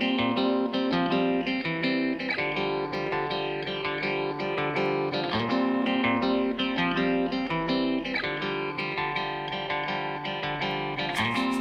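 Instrumental music led by plucked guitar, picking a pattern of notes that repeats every few seconds.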